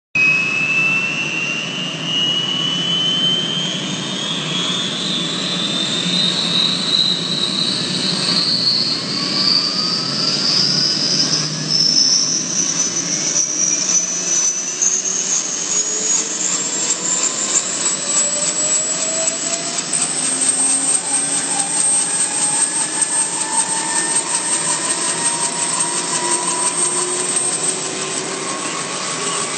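Kaman K-MAX intermeshing-rotor helicopter starting up: the turbine's high whine climbs steadily in pitch for about twenty seconds, then holds, while lower tones keep rising beneath it as the rotors spin up.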